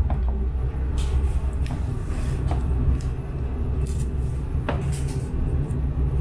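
Prague tram running along its rails: a steady low rumble with a few short clicks and knocks.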